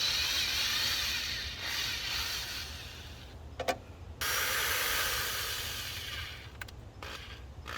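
Tool work on the engine: two long stretches of harsh scraping noise, each about three seconds, with a couple of sharp clicks in the short gap between them, over a steady low hum.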